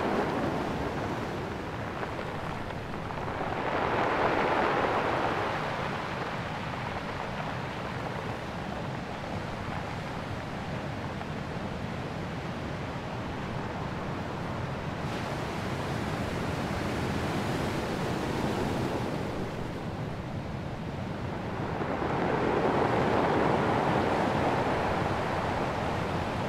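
Waves washing on the shore, with wind blowing across the microphone. The noise swells louder twice, about four seconds in and again near the end.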